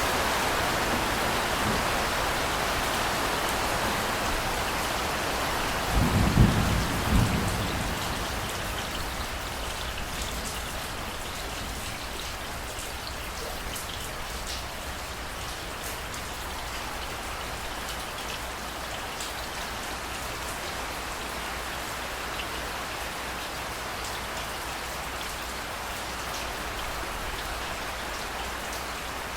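Steady heavy rain falling on hard surfaces. About six seconds in comes a short, deep clap of thunder lasting a second or two, after which the rain gets a little quieter.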